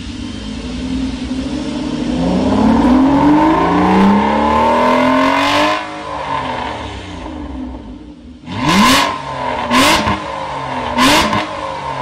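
Aston Martin Rapide S V12 with a Fi Exhaust aftermarket system, free-revved while parked: one long rev climbing for about four seconds and then dropping off, followed by three short, sharp throttle blips about a second apart.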